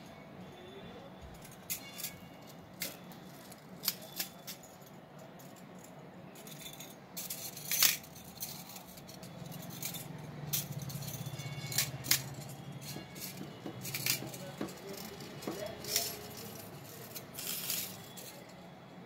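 Stacked metal bracelets clinking against each other as a hand moves them on a display roll: scattered sharp clinks and a few longer jingling rattles.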